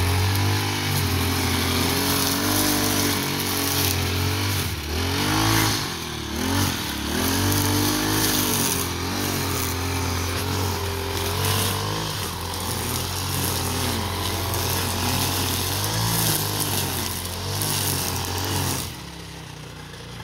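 Petrol brush cutter with a nylon-line head running at high revs while cutting grass, its engine pitch dipping and recovering as the line bites. Near the end it drops back to a quieter idle.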